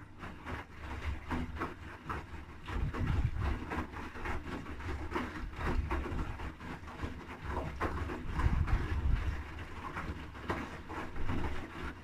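Haier HW80-B14979 front-loading washing machine's drum tumbling wet laundry through water: a low rumble from the turning drum with frequent sharp splashes and thuds as the clothes drop.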